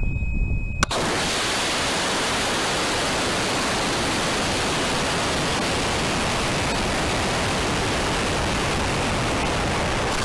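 Onboard audio of a high-power rocket launch: a sharp crack about a second in as the Cesaroni H410 motor lights, then a steady, even rush of air noise over the camera's microphone as the rocket boosts and coasts up to apogee.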